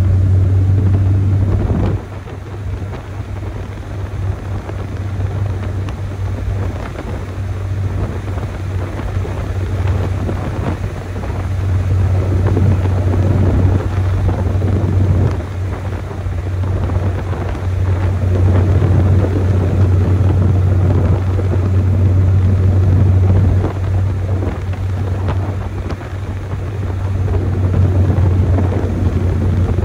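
Chevrolet S10 pickup's stock four-cylinder engine and exhaust droning under way, with road and wind noise. The drone drops off about two seconds in, comes back stronger later, eases briefly and swells again near the end.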